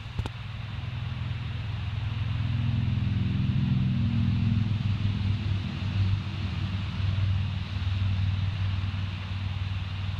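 A low engine rumble, growing louder over the first few seconds and then holding steady, with a steady high hiss behind it.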